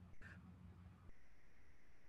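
Near silence: faint room tone, with a faint steady hiss setting in about halfway.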